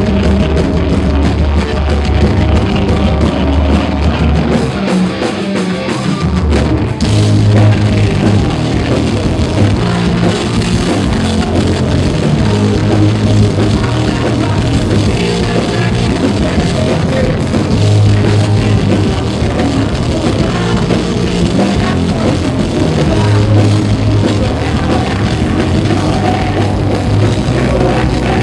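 Live metal band playing loud: distorted guitars, bass and drum kit, with a singer on the microphone, recorded from the crowd with harsh, poor-quality sound. The bass drops out for a moment about six seconds in before the full band comes back.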